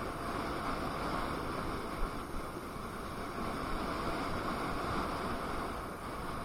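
Steady rushing of wind on the microphone mixed with tyre and road noise from a KingSong KS18S electric unicycle riding along, with one brief knock about two seconds in.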